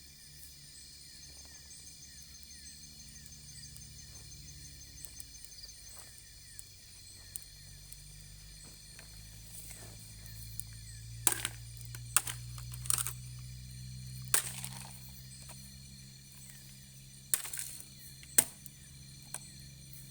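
Soft steady background music, with a handful of sharp cracks and snaps in the second half.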